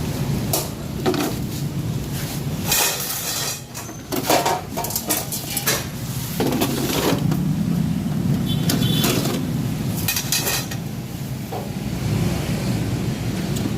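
Handling noises from unpacking: a series of short knocks, clatters and rustles as the welder's parts and packaging are moved about, over a steady low hum.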